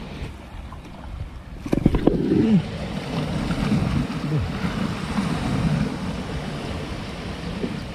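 Sea waves washing over shoreline rocks, with wind buffeting the microphone. A cluster of sharp knocks comes about two seconds in, and the wash grows louder after it.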